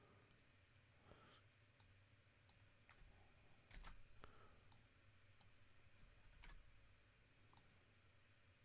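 Near silence: faint room tone with a dozen or so faint, scattered clicks at irregular times.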